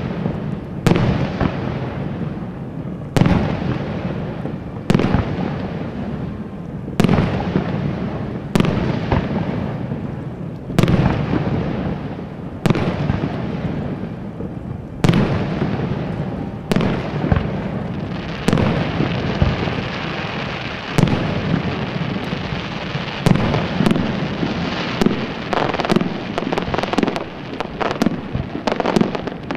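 Aerial fireworks display: shells bursting with a sharp bang about every two seconds, each followed by a crackling tail. From about two-thirds of the way through a dense crackle fills the gaps, and near the end the bangs come in a quick run.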